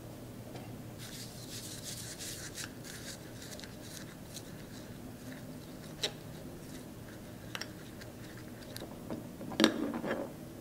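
A small spoon stirring and pressing instant coffee granules moistened with a little water in a small glass jug, working them into a paste. There is gritty scraping and crunching for a couple of seconds, then a few light clicks of the spoon against the glass, the loudest near the end.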